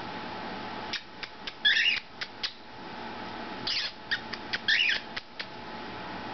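Small pet parrots calling: a scatter of short, sharp chirps from about a second in, with three longer shrill calls among them.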